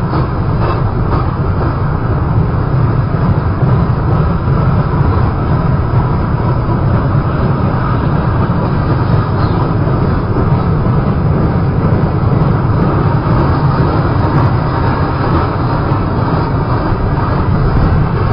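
Freight train rolling past: a loud, steady rumble of the cars on the rails, deepest in the low end, with no break or change.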